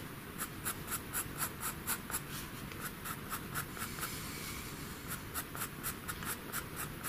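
Faber-Castell Pitt pastel pencil scratching on pastel paper in short, quick hatching strokes, about four a second, with a brief pause a little past halfway, as the artist builds up dark tone in the fur.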